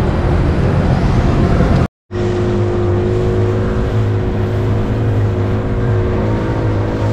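A steady rumble, then a short drop to silence about two seconds in. After that, an inflatable dinghy's outboard motor runs steadily at speed, its hum holding one pitch, with wind and water rushing past.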